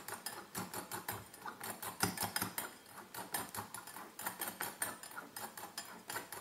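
A spoon stirring cake batter in a glass bowl: quick, repeated clicks and scrapes of the spoon against the glass, several a second.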